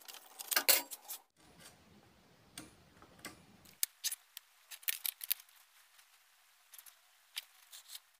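Sparse light clicks and taps of small objects being handled, irregular and spread through the stretch, with quieter gaps between them.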